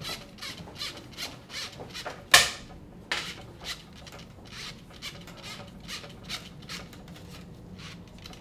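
Flexible endoscope cleaning brush fed into a gastroscope's suction channel in short pushing strokes, its wire shaft rubbing and scraping at the port about three times a second, with a sharp click about two and a half seconds in. This is the manual brushing of the channels during cleaning.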